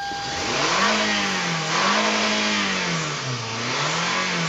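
Toyota Camry four-cylinder engine just started after a throttle body cleaning and revved up and down about three times, dropping back toward idle near the end.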